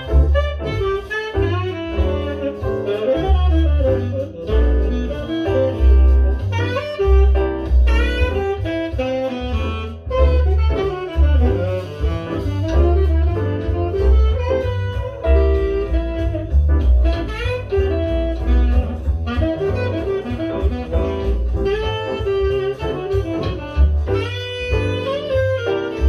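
Jazz with a saxophone lead over a deep, pulsing bass line, played back through a pair of KEF LSX wireless speakers.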